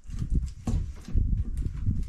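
A quick, irregular run of knocks and thumps, about three a second, from demolition work on the wooden galley fittings of an old boat.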